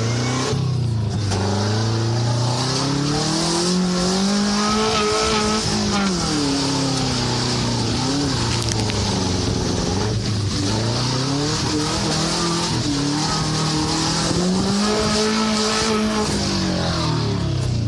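Subaru "truckaru" engine revving hard, its pitch climbing and falling in long sweeps about twice as the car is driven and slid through mud, with a steady hiss from the spinning tyres above it.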